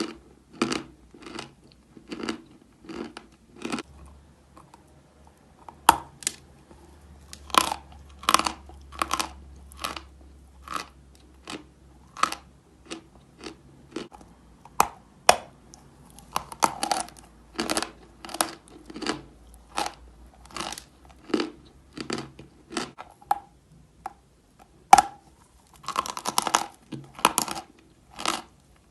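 Chalk being chewed close to the microphone: a steady run of dry, crisp crunches, roughly one to two a second, with a few sharper, louder bites along the way and a quick cluster of crunches near the end.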